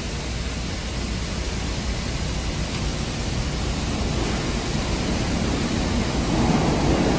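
An R160 subway train standing at the platform with its doors open: a steady hiss with a low rumble, typical of the car's ventilation running. It grows a little louder near the end.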